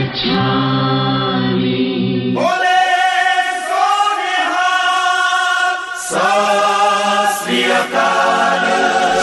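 Devotional chanting in short cut-together excerpts: low sung voices holding notes, then a higher held line from about two and a half seconds in, then low voices again about six seconds in.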